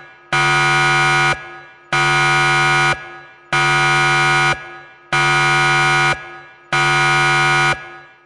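Digital alarm clock buzzer going off at the end of the countdown: a loud, low buzz with many overtones, repeated in one-second beeps about every 1.6 seconds, five times and starting a sixth at the very end.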